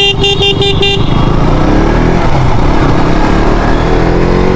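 A vehicle horn sounds for about a second, then road traffic noise continues, with an engine rising in pitch.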